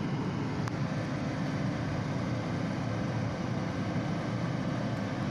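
A steady low engine rumble, like heavy machinery running, with a single brief click less than a second in.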